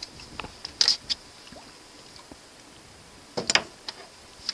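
Water splashing as a hooked northern pike thrashes at the surface beside the boat: a few short splashes, the biggest about three and a half seconds in.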